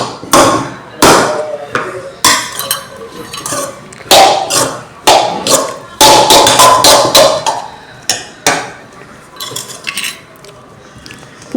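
A metal spoon or spatula knocking and scraping against a cooking pot while noodles are stirred together with masala: a string of sharp, ringing knocks at uneven intervals with scraping in between.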